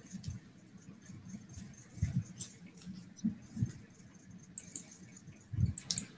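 Faint scattered knocks and thuds with light clicking and rustling, the handling noise of people moving close to a laptop microphone, with a small cluster near the end.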